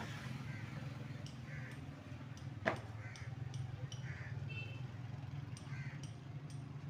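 Small clicks and taps of electrical wires being twisted together and handled by hand, with one sharper click about two and a half seconds in, over a steady low hum.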